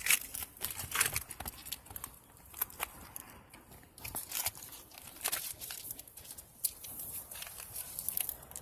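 Irregular sharp clicks and crinkling, rustling handling noises.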